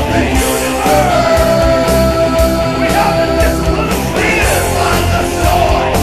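Heavy metal song with a lead vocal over a full rock band; the singer holds one long note for a couple of seconds, then sings the next line.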